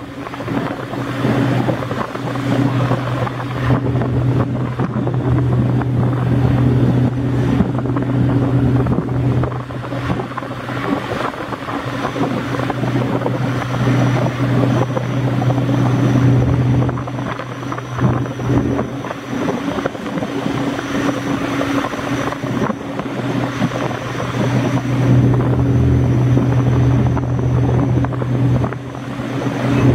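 Kvaerner Fjellstrand 35 m Foilcat hydrofoil catamaran running at about 34 knots on its gas turbines. It is heard as a steady low hum over an even roar, and the hum weakens for a few seconds about two-thirds of the way through.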